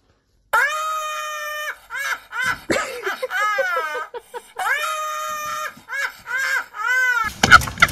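An elderly woman's shrill, shrieking laughter: a long held squeal, then short cackles and a wavering fall, the whole run heard twice. Near the end a rapid clattering starts.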